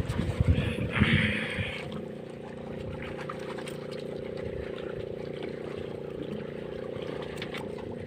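A boat's engine running at a steady drone. In the first two seconds low buffeting thumps and a brief rush of noise sit over it.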